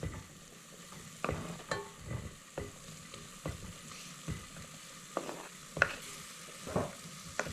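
A pot of vegetable curry frying with a steady sizzle while potato and butternut pieces are added and stirred in, the spoon knocking against the pot at irregular intervals.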